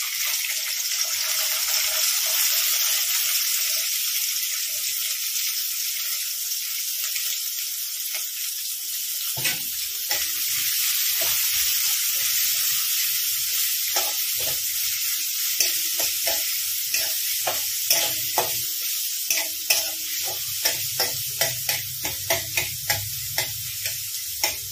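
Chopped onions sizzling in hot oil in a steel kadai. From about ten seconds in, a metal spatula scrapes and knocks against the pan as they are stirred, the strokes coming quicker near the end.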